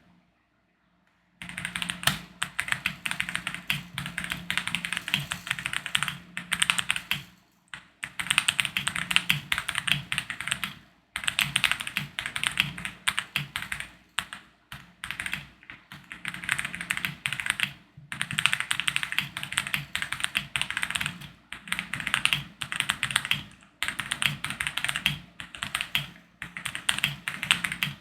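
Fast typing on a 65% mechanical keyboard with Boba U4T tactile switches and MOA keycaps. The rapid key clacks come in runs of a few seconds with brief pauses between them, beginning about a second in.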